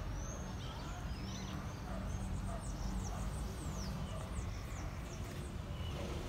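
Small birds chirping: many short, high chirps, each sweeping quickly downward, over a steady low rumble.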